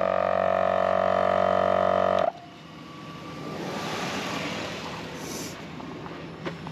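Morrflate Ten Six air compressor running with a steady hum, switched off with the tyres at about 36 psi: it cuts off suddenly about two seconds in. A soft hiss follows.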